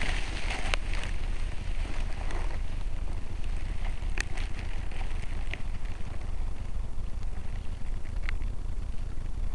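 Wind buffeting the microphone of a miniature MD80 camera: a steady low rumble with hiss, broken by a few sharp clicks, the strongest about four seconds in.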